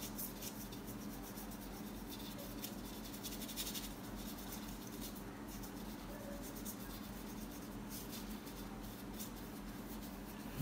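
Faint, irregular scratchy strokes of a paintbrush working paint, over a low steady hum.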